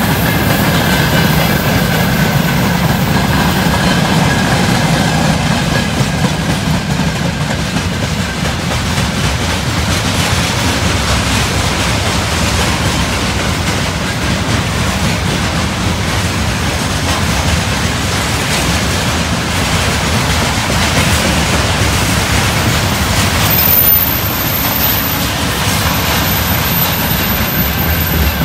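Freight train of open gondola wagons and covered hopper cars rolling past close by: a steady rumble and clatter of steel wheels on the rails, with a brief louder moment near the end.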